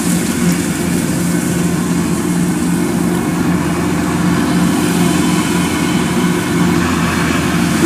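Kubota DC-108X combine harvester working under load while it cuts and threshes rice. Its diesel engine and threshing machinery make a steady, even hum.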